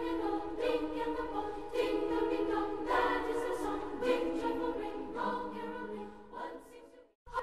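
Background music: a choir singing slow, held chords, fading away near the end to a brief silence.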